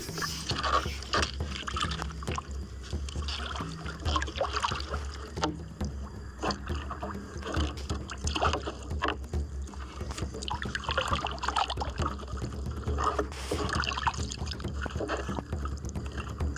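Water splashing and lapping against a small plastic-drum boat, with knocks and handling noise as a fishing handline is hauled in hand over hand, over a steady low rumble.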